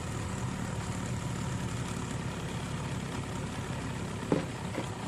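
Mercury outboard motor running steadily at idle, with a sharp knock about four seconds in.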